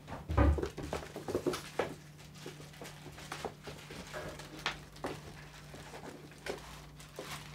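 Footsteps and a Weimaraner puppy's claws pattering and clicking on a wooden floor, with a louder thud about half a second in and a low steady hum underneath.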